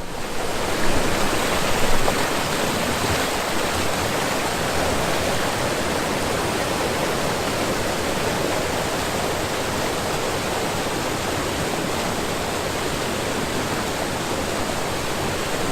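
Waterfall with several cascades rushing steadily, a loud, even roar of falling water.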